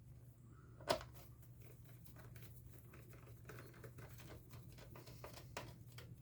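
Hand screwdriver driving small screws into a laptop's plastic bottom case: a series of faint irregular ticks and clicks, with one sharper click about a second in.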